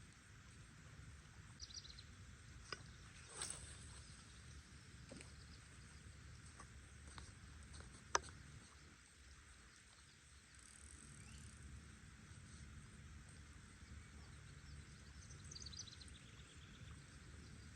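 Near silence: faint outdoor ambience with a low rumble, a few small clicks and one sharp click about eight seconds in, and two brief high chirps, one near the start and one near the end.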